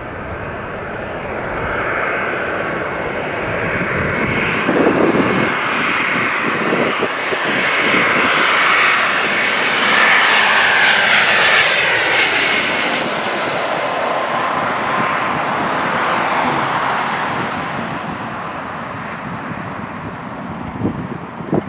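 Jet airliner passing, its engine noise swelling to a peak about halfway through and then fading, with a high whine that falls in pitch as it goes by.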